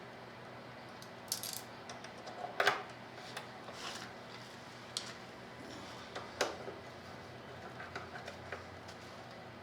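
Scattered light clicks and metallic clinks of hand tools and small hardware being handled during motorcycle assembly, with two sharper knocks, one a little under 3 seconds in and one past 6 seconds.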